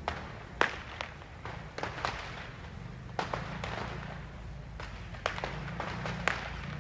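Firecrackers going off in scattered sharp bangs at an irregular pace, about a dozen in all, the loudest about half a second in and again near the end, over a steady low rumble.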